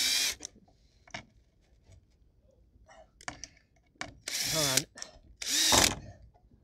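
Cordless drill backing screws out of a wooden crate's support braces in three short bursts, the motor whining up and winding down in pitch each time. One burst comes right at the start, and two more come close together about four and five and a half seconds in. Light clicks and knocks of the bit and wood fall between them.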